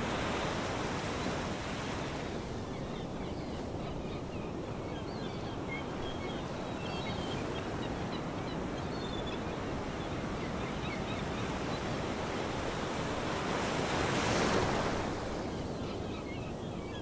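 Sea waves washing in a steady surf-like hiss that swells once, about fourteen seconds in, with faint scattered high chirps over it.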